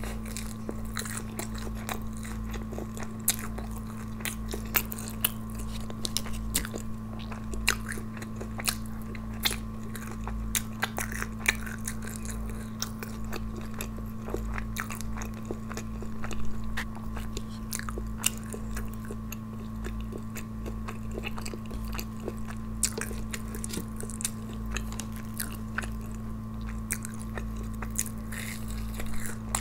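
Close-miked biting and chewing of crisp crumb-coated fried paneer momos (kurkure momos), with many sharp crunches spaced irregularly. A steady low electrical hum runs underneath.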